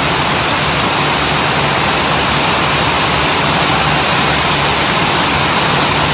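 Steady, loud din of chain-making machines running on a factory floor, a dense clatter with a low hum underneath.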